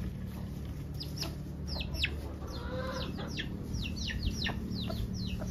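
Chickens calling: a string of short, high chirps that fall in pitch, about three a second, coming quicker through the second half.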